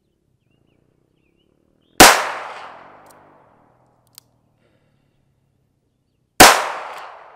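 Two shots from a Taurus 856 .38 Special snub-nose revolver, about four and a half seconds apart, each ringing out and dying away over about a second.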